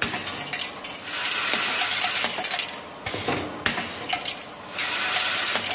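Metal screws rattling and clinking as a screw-orienting packaging machine feeds them. The dense rattling comes in stretches a second or two long with quieter gaps of scattered clicks between.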